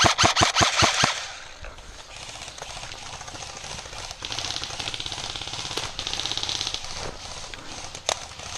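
Airsoft rifle firing a rapid string of shots for about a second. Then a quieter, steady rustling rattle until a few single clicks near the end.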